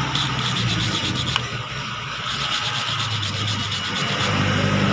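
Hand steel wire brush scrubbing rust off a motorcycle disc-brake caliper part in rapid back-and-forth scratchy strokes, in two runs with a short pause between.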